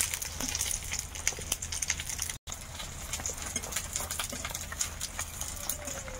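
Banana-flower fritters frying in hot oil in a pan: a steady sizzle full of small crackles and pops. The sound breaks off for an instant a little over two seconds in.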